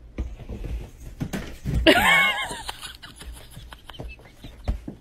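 Soft thumps and patter of a cat scrambling over a bed after a laser dot, with a loud wavering cry about two seconds in.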